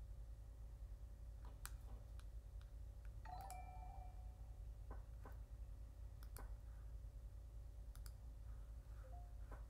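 Faint, scattered sharp clicks over a low steady hum. A short pitched ringing tone comes about three and a half seconds in, and a brief one near the end.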